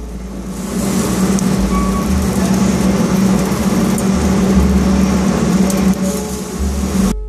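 Steady mechanical hum with a rushing noise underneath, cutting off abruptly near the end.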